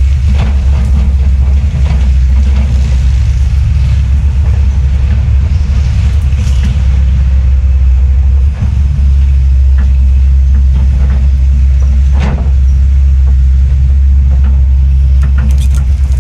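Heavy diesel land-clearing machinery running under load with a steady low drone, a few short sharper sounds standing out over it now and then.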